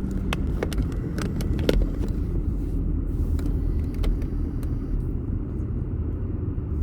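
A car driving, its engine and road noise a steady low rumble heard from inside the cabin. A few light clicks or knocks come in the first couple of seconds, and one more about four seconds in.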